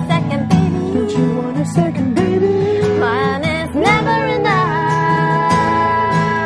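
A woman and a man singing together over a strummed acoustic guitar. About four seconds in, the voices slide up into one long held note.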